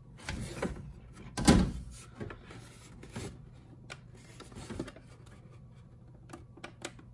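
Hands gripping and pressing on a plastic G-Shock-style wall clock case: scattered soft knocks, rubs and clicks, the loudest about one and a half seconds in, with a few fainter ticks later.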